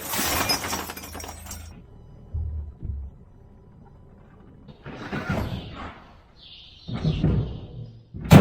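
Steel T-posts and tools clattering and clanking as they are unloaded and thrown down, in several bursts with a couple of dull thumps between, the loudest a sharp crash near the end.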